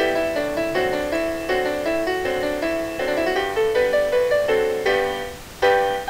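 Background music: a keyboard playing a quick run of notes, with a short break near the end before the next phrase begins.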